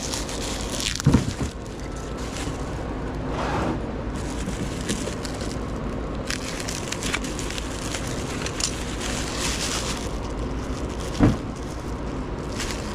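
Bubble wrap crinkling and crackling as it is handled and unwrapped, with two dull thumps, one about a second in and one near the end, over steady background noise.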